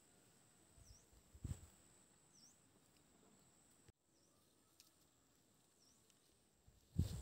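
Faint outdoor ambience: short bird chirps repeating every second or two over a steady high insect whine, with a low thump about a second and a half in and another near the end.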